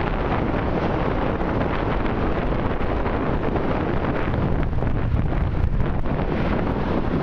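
Wind blowing across the microphone, a steady low rush, with car traffic passing on the road beneath it.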